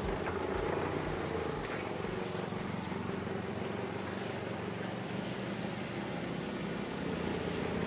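Vehicle engine running steadily at idle, a low, even rumble and hum. Faint short high-pitched tones sound now and then.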